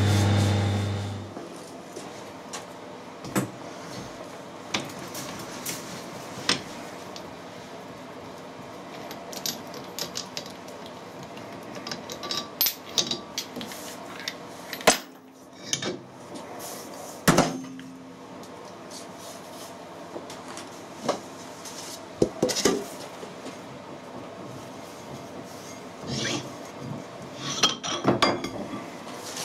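Metal lathe running with a steady hum, stopping about a second in. Then irregular metal knocks and clinks as a cast-iron brake drum is handled and worked off the taper mandrel held in the chuck, with two louder knocks around the middle.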